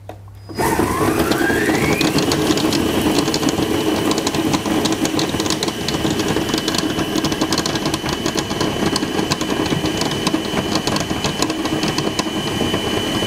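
Countertop food processor motor spinning up about half a second in, its whine rising in pitch for a couple of seconds and then running steady at high speed. Raw cauliflower pieces, oat flakes and grated cheese rattle against the blade and bowl as they are ground into a paste.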